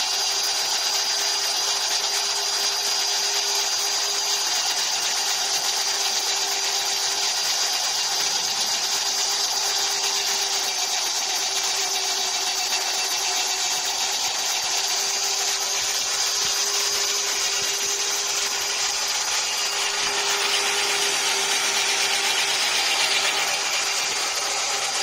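Small electric chaff cutter (mini toka) running, its belt-driven cutter wheel chopping dry straw that is hand-fed into it: a steady motor whine and hum under the rough chopping noise.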